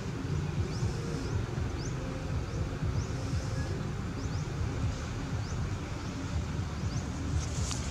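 Outdoor ambience: a steady low rumble with short, high, rising chirps every second or so, and a faint tick near the end.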